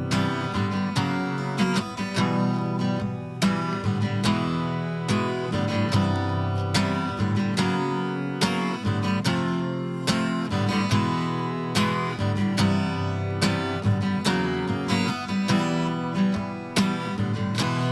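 Instrumental passage of a rock song, led by strummed guitar in a steady rhythm.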